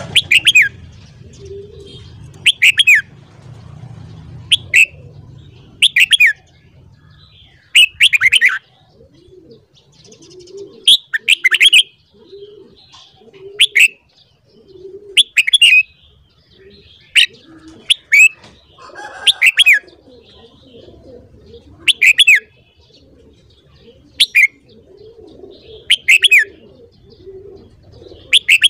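Red-whiskered bulbul calling: short, bright, falling phrases repeated about every one to two seconds. Soft low notes sound beneath them.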